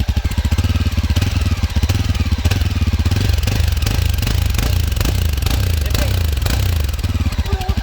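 Yezdi Adventure's 334 cc single-cylinder engine heard at the exhaust, idling with a steady, even beat. About a second in it is revved up and held for a few seconds, then drops back to idle near the end.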